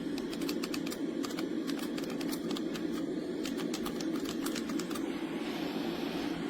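A sleep sound machine playing one of its soothing-sound tracks: irregular sharp crackles over a steady low hum.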